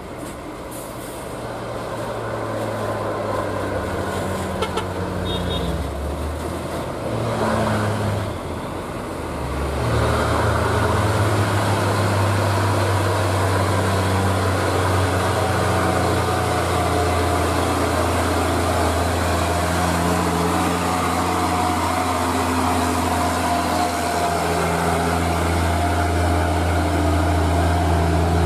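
Loaded Mitsubishi Fuso 220 PS dump truck's diesel engine pulling hard up a steep grade, getting louder as it approaches. The engine note dips briefly about eight seconds in, then comes back louder and steady.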